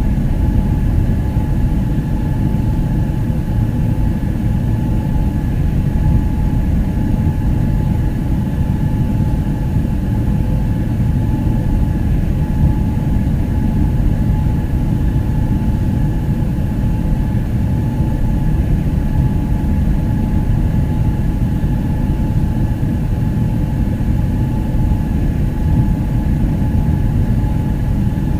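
Boeing jet airliner noise: a steady low roar with a faint steady whine above it, holding level throughout.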